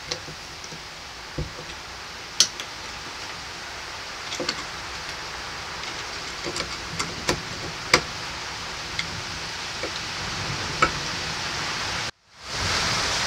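Hand screwdriver driving the stainless steel screws that fasten a Grohe thermostatic shower valve into its rough-in box: scattered sharp metal clicks and scrapes a second or more apart, over a steady hiss. The sound drops out for a moment near the end.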